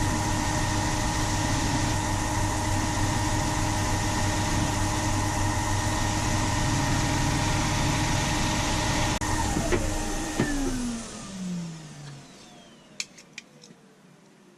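Electric power tool motor running steadily, then switched off and spinning down with a falling whine over about two seconds. A few light clicks follow near the end.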